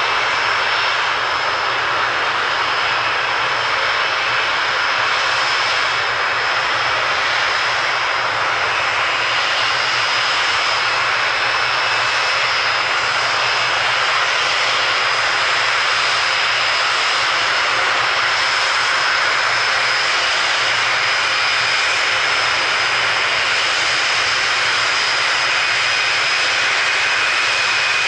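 Boeing 747 jet engines running at takeoff power during the takeoff run: a loud, steady rush of noise with two high steady whining tones over it.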